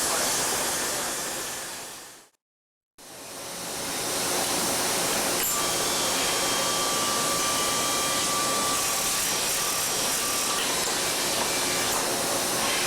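Steady hiss of welding on an exhaust pipe. It fades out about two seconds in, goes completely silent for about half a second, then fades back in and runs on steadily.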